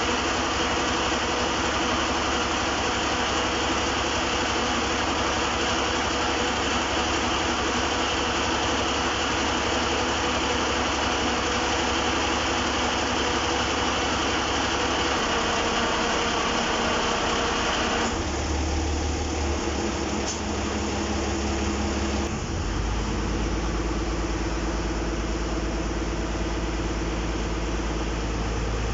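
Kirloskar diesel engine of a ferry boat running steadily. About eighteen seconds in the sound changes: the high hiss falls away and a deeper hum takes over, and the hum shifts again a few seconds later.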